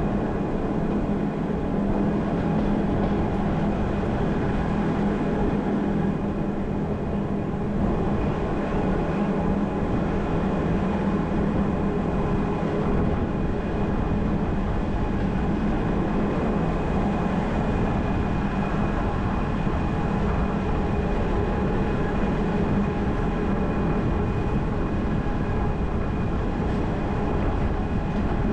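Gornergrat Bahn electric cogwheel train running downhill on its rack line: a steady, even running noise with a constant hum.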